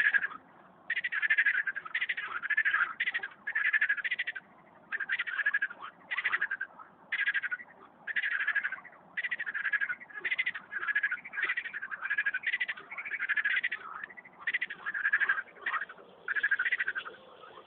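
Frogs croaking: short rattling calls, each about half a second long, repeated about once a second with some overlapping.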